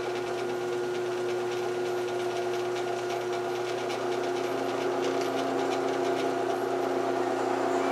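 Drill press running steadily with a constant motor hum, while the bit cuts into a metal bracket with a fine, steady scratching.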